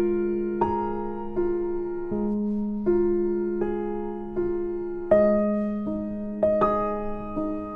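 Gentle background piano music: notes and chords struck at an unhurried pace, each fading away, over a held low note.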